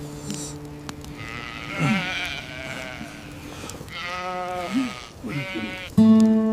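Sheep bleating, three wavering bleats one after another, over sustained bowed-string music that swells loudly near the end.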